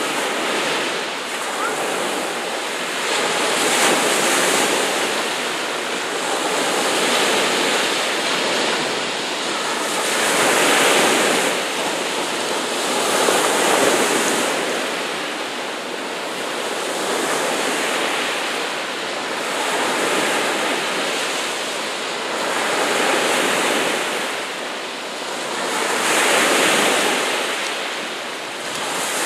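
Sea waves surging and washing, the rush of water swelling and fading about every three seconds.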